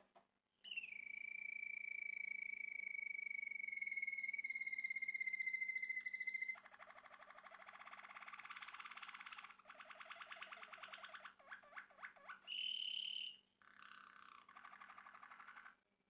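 Male Malinois Waterslager canary singing: a long, clear whistled note that dips slightly at the start and holds for about six seconds, then rapid rolling, bubbling trills broken by short pauses, a brief higher clear note, and another rolling trill near the end.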